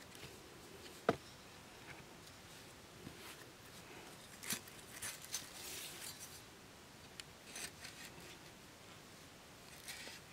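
Faint rubbing and scraping of string and wooden sticks being handled as a stick frame is lashed together, with one sharp click about a second in and scattered small knocks and scrapes later.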